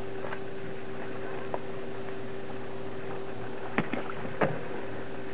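Brushless electric motor of an Aquacraft SuperVee RC boat, turning a two-blade brass prop, running steadily at one pitch across the water. A few sharp clicks come about four seconds in.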